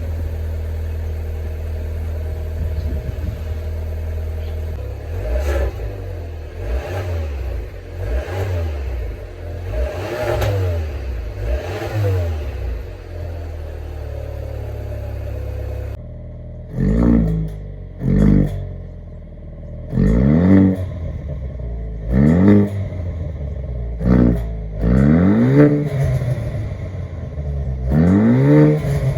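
Haval H6 GT's turbocharged four-cylinder engine and exhaust idling steadily, then revved repeatedly with the pitch rising and falling. After a cut about sixteen seconds in it gives short, sharp throttle blips every couple of seconds, louder than before.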